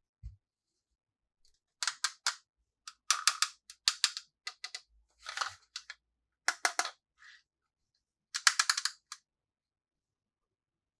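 Small hard plastic toy pieces being handled, giving clusters of quick sharp clicks and taps in short bursts with pauses between, and a soft low thump near the start.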